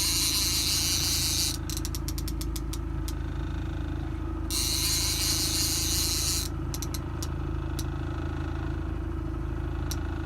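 Fishing boat's engine running slowly at trolling speed, a steady low hum. Stretches of high hissing come and go over it, and a quick run of clicks sounds about two seconds in.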